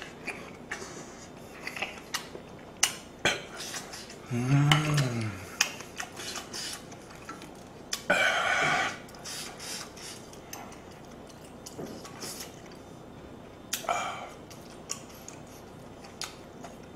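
Eating sounds: a wooden spoon clicking against a stainless steel pot and a small plate, with slurping and chewing of hot stew. A short hummed "mmm" about four and a half seconds in, and two brief slurps near the middle and later on.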